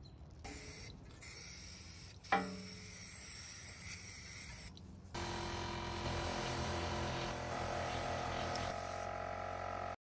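Aerosol spray paint can hissing in bursts, with short breaks about a second in and about five seconds in, and a sharp click a little over two seconds in.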